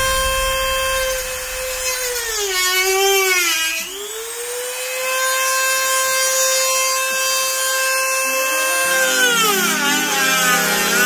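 Small handheld power tool's electric motor whining at high speed as it works the plastic of a front bumper cover. The pitch sags and recovers about two to four seconds in as the tool bears down, then sags again near the end and winds down.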